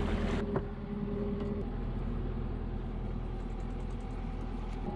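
A rush of wind and water cuts off about half a second in, followed by a single sharp click, a paint can lid being pried open. A steady low mechanical hum then runs on, with faint light ticks as the paint is stirred.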